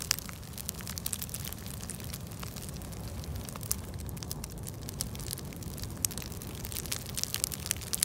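Wood campfire of split birch logs burning in a fire pit, crackling with frequent sharp pops over a low steady rumble, with a quick run of pops near the end.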